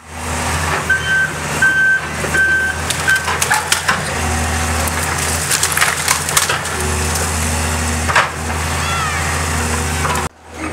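Heavy demolition machinery tearing down a building: a diesel engine running under load, a backup alarm beeping four times in the first few seconds, and wood and debris cracking and crunching throughout.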